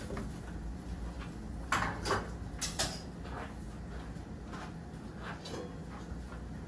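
Kitchen handling noises: a few sharp knocks and clatters of dishes or cookware being moved, bunched about two to three seconds in, then fainter taps, over a low steady hum.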